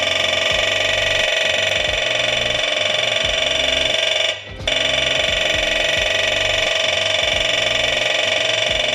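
Dot-peen marking gun hammering a VIN into a catalytic converter's shell: a loud, steady high buzz that stops briefly about four and a half seconds in, then resumes.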